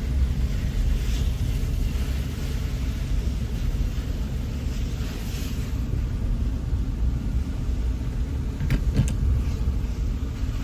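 Steady low rumble, with a few faint clicks about nine seconds in.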